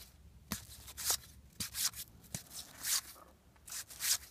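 Paper trading cards being slid and flipped over by hand: a run of short, irregular swishes and light clicks, about two a second.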